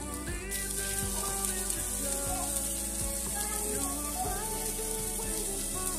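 Patties sizzling in a ridged cast-iron grill pan, a steady hiss that starts about half a second in. Background music plays underneath.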